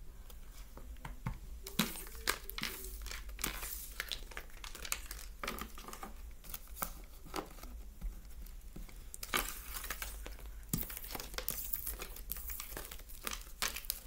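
Reading cards being picked up off a tabletop and gathered into a stack by hand: irregular quick papery clicks and rustles of card stock.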